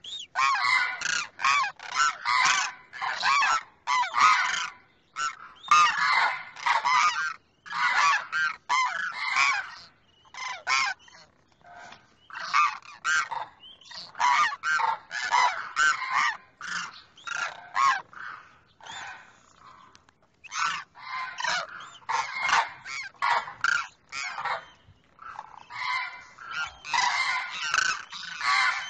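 Demoiselle cranes calling: a near-continuous run of quick, pitched calls, several a second, broken by brief pauses about ten and nineteen seconds in.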